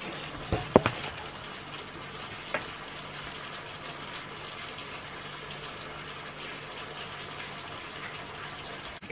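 Boneless chicken pieces cooking in butter and teriyaki sauce in a frying pan, with a steady sizzle and bubbling. A few light clicks come in the first few seconds.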